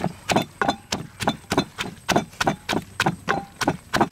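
Pestle pounding in a mortar for papaya salad: a steady run of sharp knocks, about four or five a second.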